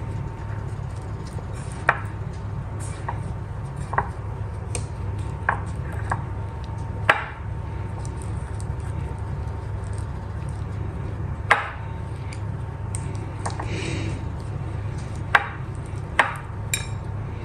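Hands dredging a marinated chicken leg in dry flour in a bowl: soft rubbing and pressing, with about eight sharp knocks as the piece or the fingers hit the bowl, over a steady low hum.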